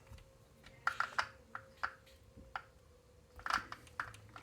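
Irregular light clicks and taps from small hard parts and tools being handled during work on an RC car, a dozen or so sharp ticks at uneven intervals, busiest about a second in and again past three seconds.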